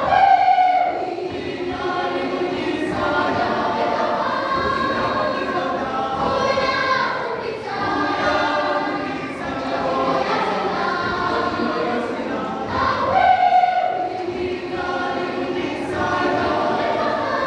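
A large children's and youth choir singing together, phrase after phrase with short breaths between, swelling louder near the start and again about thirteen seconds in.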